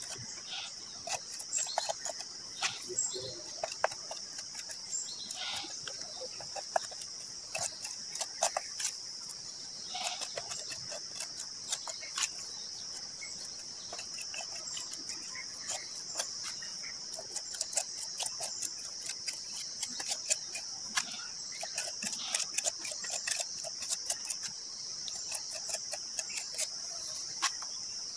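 Steady high-pitched drone of insects, with many small clicks, taps and crumbling sounds from hands picking at and pulling on a rough, dried cement flowerpot shell.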